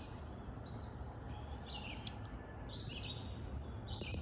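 A small songbird singing the same short, high chirpy phrase over and over, about once a second, over a steady low background hum.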